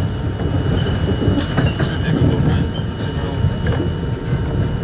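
Subway train running along the track, heard from inside the front car: a steady low rumble of wheels on rail with scattered short clicks and knocks.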